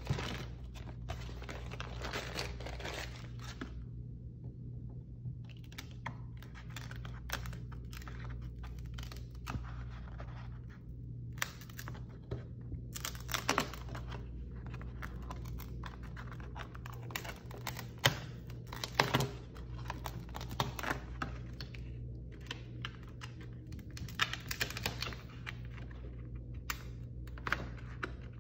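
Paper and newspaper masks rustling and crinkling under the hands, with scattered small taps and scratches, over a steady low hum.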